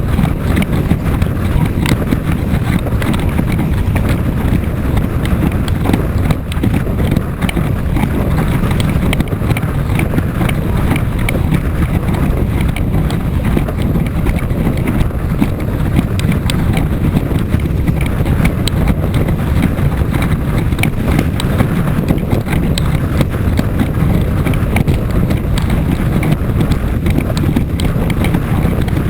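Strong wind buffeting the microphone of a camera riding along on a windsurfer planing in a gale, a loud steady rumble with a dense, irregular clatter of small knocks throughout.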